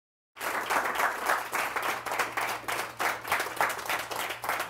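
Audience applauding, starting abruptly a moment in and continuing steadily, with a faint low hum underneath.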